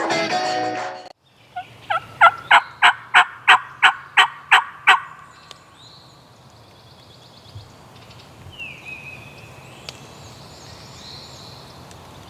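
A wild turkey calling in a loud run of about eleven sharp, evenly spaced notes, roughly three a second, lasting a few seconds. Intro guitar music cuts off about a second in, and faint songbird chirps follow the turkey calls.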